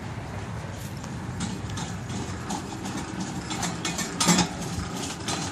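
Footsteps walking over dry leaves, mulch and grass, an irregular series of rustling, crackling steps that starts about a second and a half in and grows louder toward the end, over a steady low hum.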